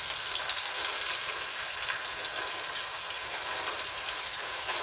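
Chopped onion frying in hot oil with cumin seeds in a kadai, a steady sizzle with fine crackling.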